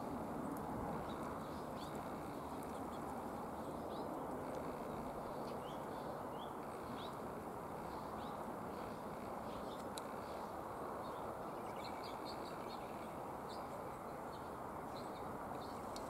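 Small songbirds chirping off and on in short, high chirps over a steady low outdoor hiss.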